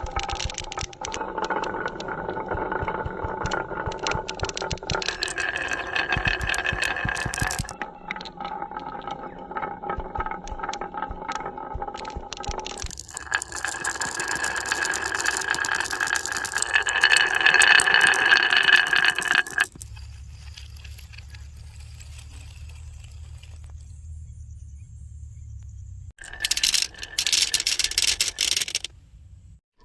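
Marbles rolling and clattering down wooden HABA marble run tracks, a dense rattle of clicks with a ringing rolling tone. The sound changes abruptly several times, with a quieter stretch of only a low hum about two-thirds through.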